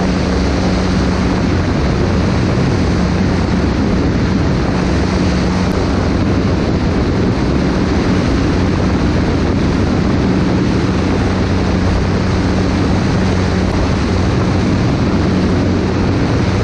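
Single-engine high-wing light aircraft in steady cruise, heard from outside the cabin: constant engine-and-propeller drone with a low steady hum, under a heavy rush of airflow over the microphone.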